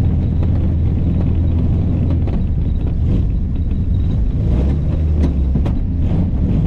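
1935 Austin 7 Ruby's small four-cylinder side-valve engine running as the car is driven, a steady low drone mixed with road noise.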